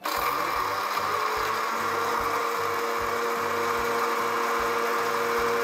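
Electric mixer-grinder (mixie) motor switched on and running at full speed, its steel jar grinding chocolate sandwich biscuits into powder. It starts abruptly and runs as a steady whirr, with a steady hum settling in after a couple of seconds.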